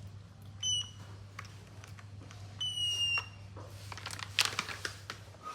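Two high electronic beeps over a steady low hum. The first is short, about a second in. The second is longer and falls slightly in pitch, about halfway through. Light clicks and rustling follow near the end.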